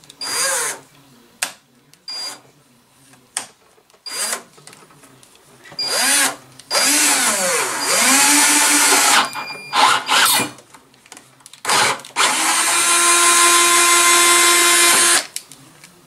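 Cordless drill driving an 8 mm tap into the end of an aluminium extrusion. The motor whines in short trigger bursts, then in longer runs that rise and fall in pitch, and runs steadily for about three seconds near the end.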